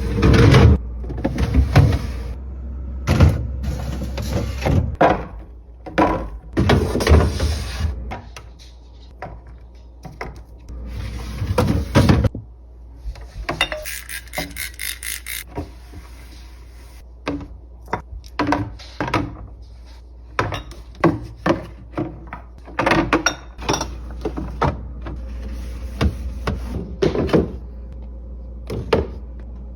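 Clatter of a refrigerator being emptied and cleaned: many knocks, clunks and thuds of containers, drawers and shelves being handled, with stretches of softer rubbing noise between and a quick run of clicks about halfway through.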